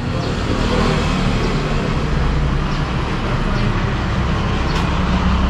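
Road traffic noise: a steady low rumble of passing vehicles that grows a little louder partway through.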